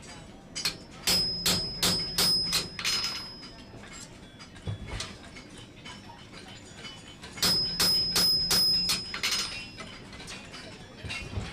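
Blacksmith's hammer striking hot iron on an anvil in two runs of about six blows each, the anvil ringing with each run.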